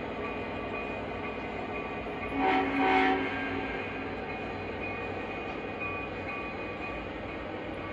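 O-gauge model train running on the track with a steady rolling hum. About two and a half seconds in, its horn sounds briefly in two quick pulses.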